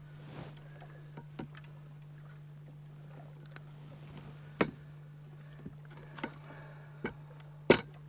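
A few sharp knocks and clacks on an aluminium boat deck as a freshly caught walleye and gear are handled, the loudest just before the end, with light rattling between them. Under them runs a steady low hum.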